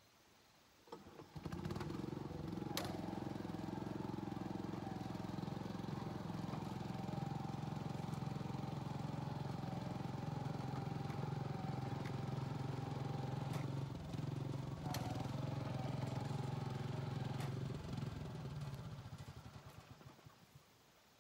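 An engine comes in abruptly about a second in and runs steadily, with a few sharp clicks over it, then fades away over the last few seconds.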